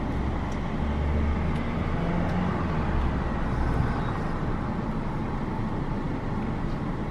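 Steady vehicle rumble and hiss heard from inside a parked car, with a deeper low rumble for about the first four seconds.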